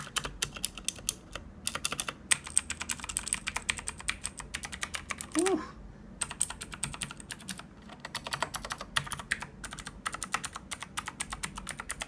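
Fast typing on a Razer BlackWidow Ultimate 2014 mechanical keyboard, its clicky Razer Green switches clacking in quick runs of keystrokes, with a brief lull about halfway through.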